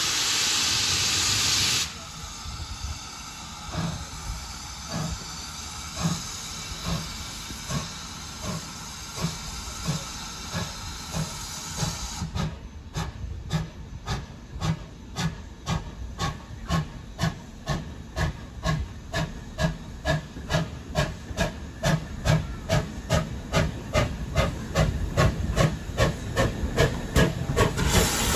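GWR 57xx-class pannier tank steam locomotive 7714 starting away with a train. A loud hiss of steam comes first, then its exhaust chuffs, slow at first and quickening steadily to about three a second as the engine gets closer and louder. A softer steam hiss runs under the beats through the first half.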